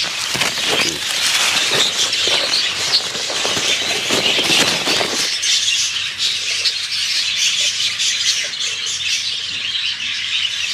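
Rustling of wet green-bean foliage as the plants are parted and handled for picking, busiest in the first five seconds, over a steady high background hiss.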